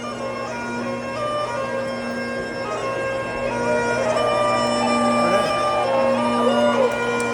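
Bagpipes playing a processional tune over their steady drones, getting louder over the first few seconds.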